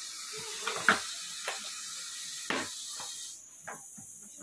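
Russell's viper hissing with a steady hiss, broken by a few sharp knocks, the hiss falling away about three seconds in.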